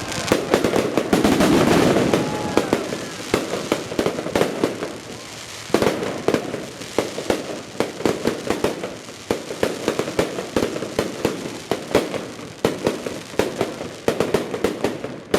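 Aerial fireworks display going off: a dense volley of bangs in the first couple of seconds, then a rapid, uneven string of sharp reports and crackles.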